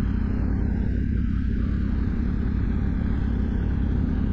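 A 2024 Yamaha Ténéré parallel-twin engine runs steadily through an aftermarket MIVV Dakar stainless-steel exhaust, giving a deep, even rumble with no revving.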